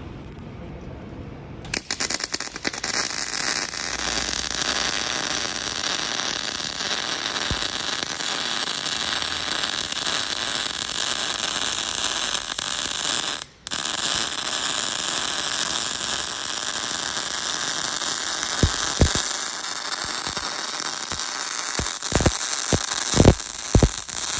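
MIG welding arc on pipe: a steady crackling sizzle that starts about two seconds in, stops for a moment near the middle and is struck again. A few short thumps come near the end.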